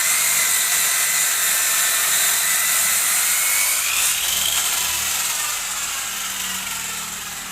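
Circular saw machine ripping a wooden plank, a loud steady high-pitched whine. About four seconds in the whine rises in pitch, then the sound fades steadily toward the end.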